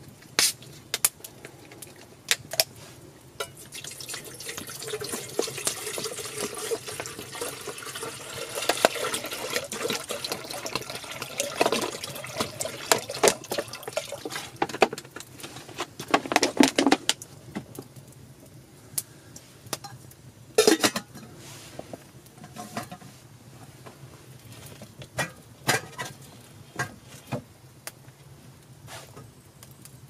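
Water poured into a stainless steel pot for about twelve seconds, then stopping. A small campfire crackles with sharp pops throughout, and there is one louder knock about twenty seconds in.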